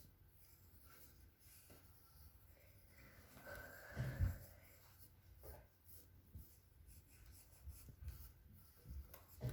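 Faint strokes of a drawing tool scratching on paper as a picture is drawn, with one louder short sound about four seconds in.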